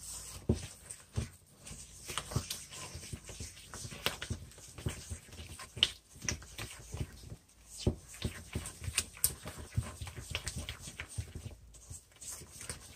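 Spatula scraping and clicking against a stainless steel mixing bowl as wet cookie batter is stirred by hand, in an irregular run of knocks and scrapes.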